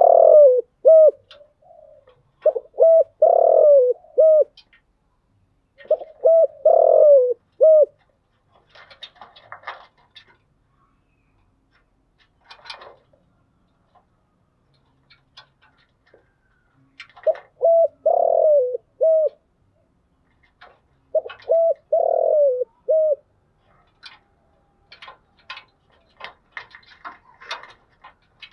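Spotted dove cooing: five phrases of several low coo notes each, four quick in succession early on and the last two after a long pause. Faint scattered clicks fill the gaps, thickening near the end.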